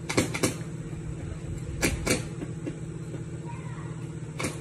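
Sharp clicks and knocks as the hog skull and its tusks are handled while being glued: two quick pairs, then a single click near the end, over a steady low hum.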